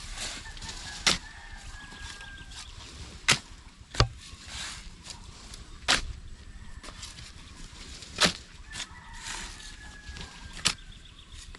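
Steel shovel blades striking and scraping into damp packed soil, one sharp stroke every two to three seconds. A rooster crows twice in the background, near the start and again about three-quarters of the way in.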